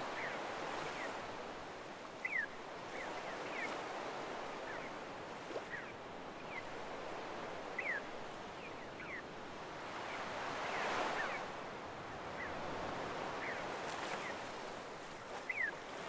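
Small waves washing up on a sandy shore, a steady hiss that swells and ebbs and peaks about eleven seconds in. Seagulls give short, falling calls now and then; the loudest come about two seconds in and near the end.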